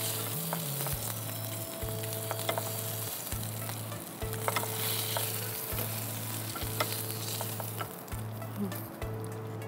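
Shol (snakehead) fish pieces sizzling as they fry in hot oil in a wok, with a few sharp clicks of a metal spatula against the pan as the pieces are lifted out.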